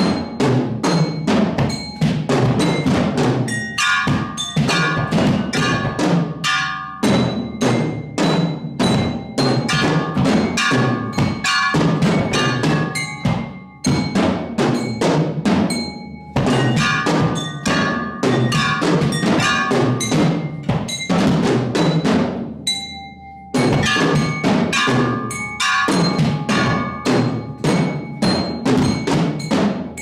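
Percussion quartet playing fast, dense interlocking strokes on drums, with high pitched, bell-like tones ringing above the drumming. The texture breaks off briefly several times, most clearly about 23 seconds in.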